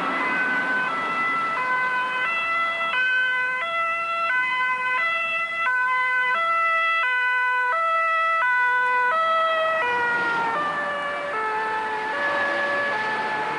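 Ambulance's two-tone siren (the German Martinshorn), alternating evenly between a high and a low note about every two-thirds of a second. After about ten seconds the pitch drops a little.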